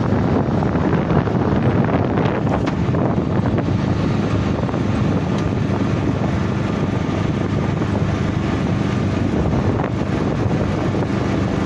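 Open-sided cart driving along at a steady speed: a continuous low motor hum and road rumble, with wind rumbling on the microphone.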